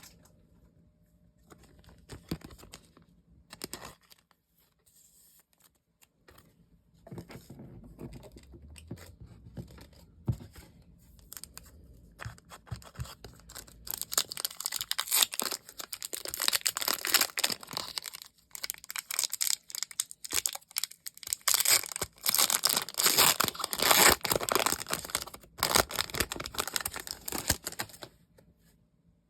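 Packaging being torn open and crinkled by hand. Scattered light rustles and clicks at first, then about halfway through a long stretch of loud, dense tearing and crackling that stops shortly before the end.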